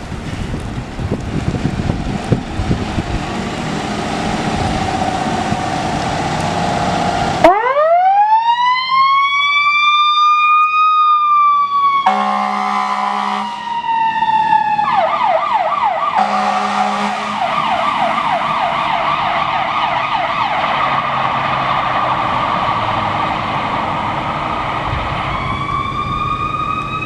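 Fire rescue unit running its siren: road noise at first, then a wail that rises and falls. Two air horn blasts come partway through, the siren switches to a fast yelp, and a fresh wail starts near the end.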